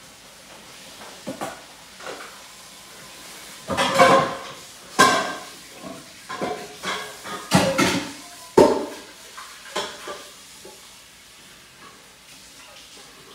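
Metal spoon scraping and knocking against a stainless skillet while ground meat is stirred, over a low sizzle. The scrapes and clinks come in a run starting about four seconds in and last about six seconds.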